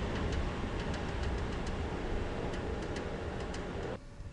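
Aerial tramway cable and machinery running as a tram car nears the station: a steady low rumble with irregular light clicks. It cuts off abruptly about four seconds in.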